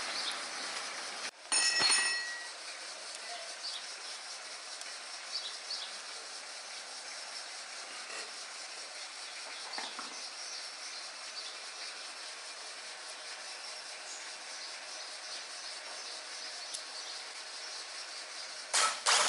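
Faint, steady hiss of background noise with no engine running. About two seconds in there is a short metallic clink that rings briefly. A brief louder noise comes near the end.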